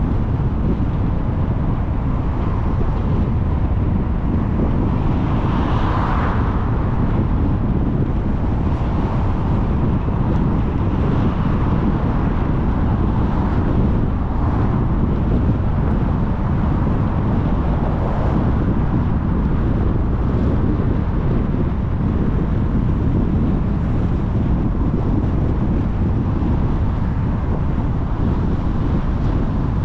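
Steady wind rush on a car-mounted microphone together with tyre and road noise from a car driving along a city street, with a few brief swells from passing traffic.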